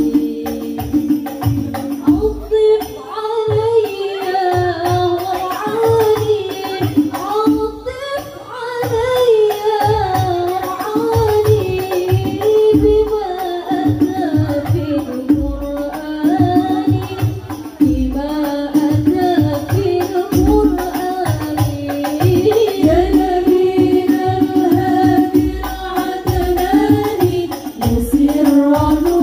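Music: a wavering melody over a steady low drum beat, with hand drum and tambourine.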